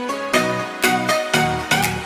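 Intro music with a steady beat, a new note struck about twice a second.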